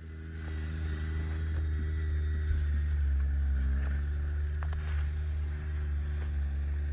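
A steady low engine hum that comes in at the start and holds at an even pitch, with a faint high whine above it and a couple of light clicks.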